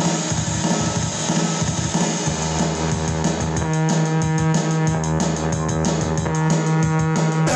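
Live rock band playing an instrumental passage with no singing: guitar and bass holding notes over a drum kit, the drum hits growing more prominent about three seconds in.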